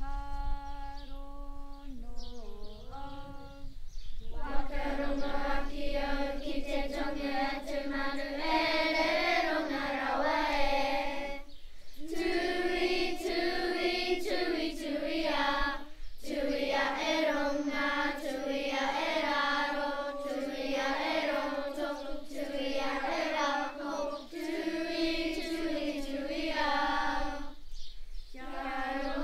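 Children's kapa haka group singing a Māori song together. A single voice opens it, the whole group joins about four seconds in, and there are short breaks between phrases.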